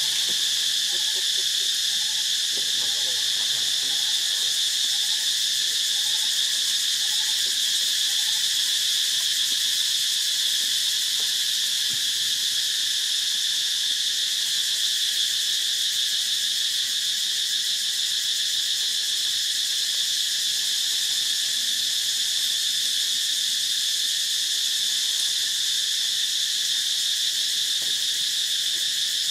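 Steady, high-pitched drone of a dense insect chorus, several buzzing layers holding one unchanging level.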